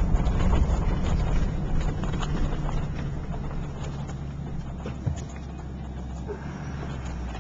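Vehicle engine running and tyres rolling on a gravel dirt road, heard from inside the cab, with scattered small knocks and rattles. The engine sound eases off over the first five seconds or so.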